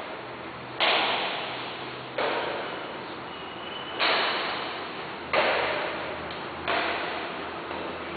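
Badminton rackets striking a shuttlecock in a rally: five sharp hits about a second and a half apart, each with an echoing tail.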